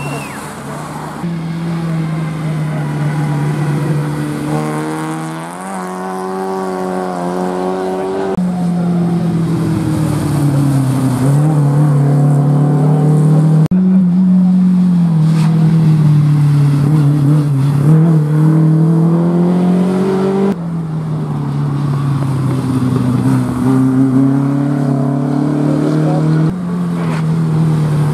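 Škoda rally cars, a Felicia and older Škoda 120-series saloons, driven hard past one after another: engines revving, their pitch climbing and dropping with each gear change. The engine sound changes abruptly several times as one car gives way to the next.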